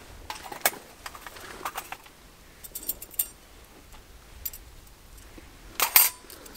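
Scattered clicks and light scrapes of small metal tools handled over a steel fire bowl, with a louder metallic clink near the end as a steel fire striker is set down on the bowl.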